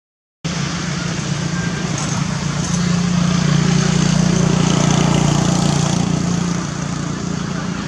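A motor engine humming steadily, growing louder about three seconds in and easing off near the end.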